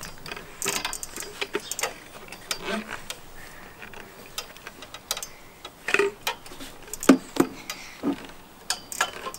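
Irregular clicks and knocks from a metal garden swing frame and its fittings as a child climbs and hangs on it.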